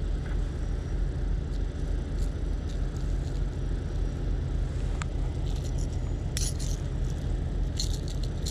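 A steady low rumble throughout, with short sharp clicks and rattles about five seconds in and twice more near the end as the treble hooks of a yellow lipless crankbait are worked free of a small largemouth bass.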